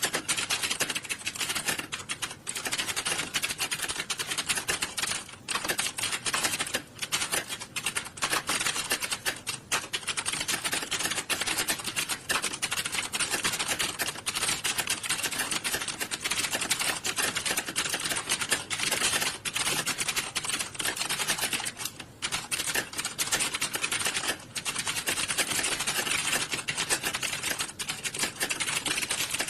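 Many computer keyboards typed on at once in an exam hall: a dense, continuous clatter of rapid overlapping key clicks that thins briefly a few times.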